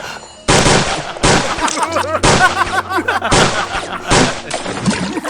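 A series of about six loud gunshots, roughly one a second, with wavering cries of distress between the shots.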